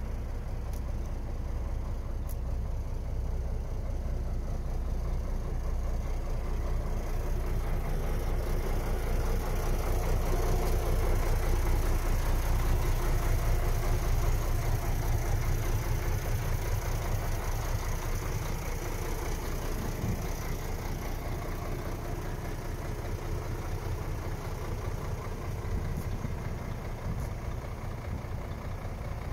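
Diesel engine of a MAN 27.410 F2000 truck idling steadily, somewhat louder around the middle.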